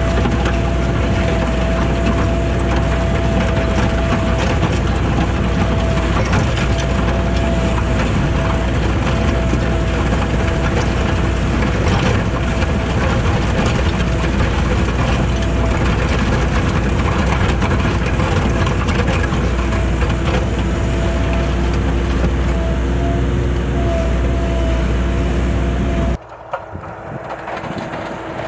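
Skid steer engine running steadily while plowing snow with a converted truck plow, a strong low hum under a steady whine. It cuts off abruptly near the end to something much quieter.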